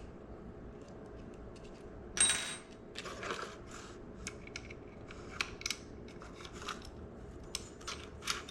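Small metal clicks and scrapes as a 20 mm ball mount is loosened with an Allen key and slid into the rail's track, with one sharper ringing metallic clink about two seconds in.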